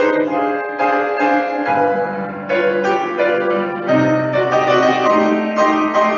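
Solo grand piano playing a slow piece: full chords struck and left to ring, a new chord about every second.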